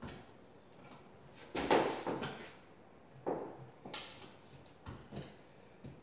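Irregular knocks and scrapes of hands and a tool working wires into an electrical box set in a plaster wall, the loudest a cluster about two seconds in.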